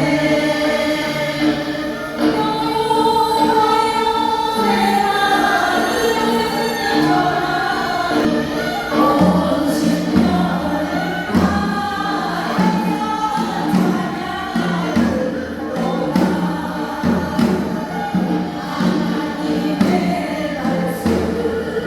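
A church praise team singing a Christian worship song together in chorus, the voices held on long notes, with a deeper bass line joining about nine seconds in.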